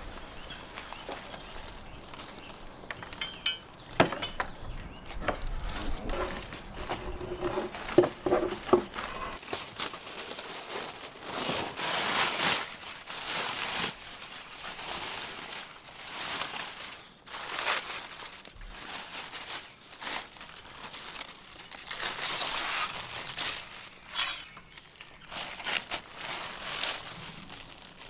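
Crinkling and rustling that comes in bursts of a second or two, with two sharp knocks about four and eight seconds in.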